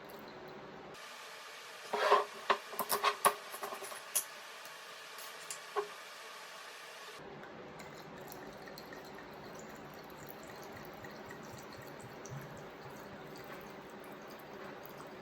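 A quick run of light knocks and clinks of small hard objects, most of them between about two and four seconds in, with two more near six seconds; otherwise faint steady hiss.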